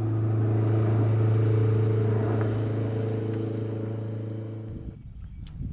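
A steady low motor hum with a few constant higher tones over it, cutting off abruptly about five seconds in.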